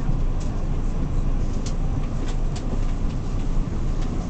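Interior of an R46 subway car running along the track: a steady low rumble with scattered sharp clicks.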